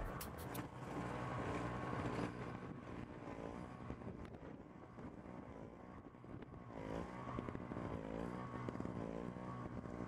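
A vehicle engine revving up and down over and over, its pitch rising and falling every half second or so through the second half.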